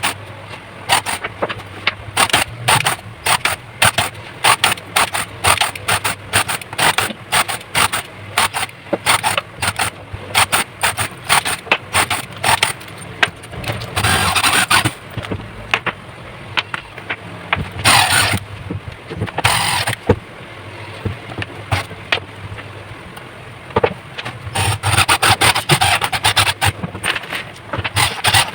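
Holes being drilled and cut into a plastic food-storage box used as a welding-machine case: many sharp clicks and knocks, with several short bursts of scraping, drilling noise about halfway through and again near the end.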